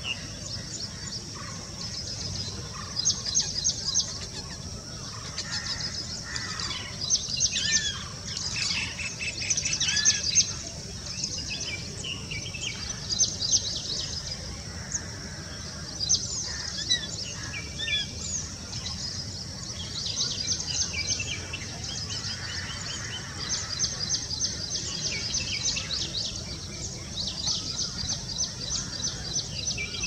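Birds calling in repeated bursts of rapid, high chirps over a low, steady background rumble.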